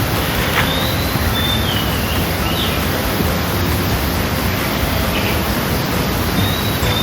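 Steady, loud rushing noise with no rhythm, with a few faint, short high whistled glides over it.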